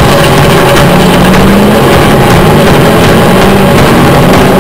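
Sandrail engine running under the onboard camera, its note rising a little about a second in and then holding steady.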